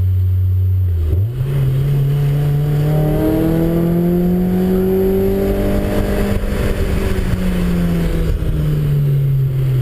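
Car engine pulling hard through a corner on a track. The revs step up about a second in and again around three seconds, peak mid-way, then ease down in steps near the end.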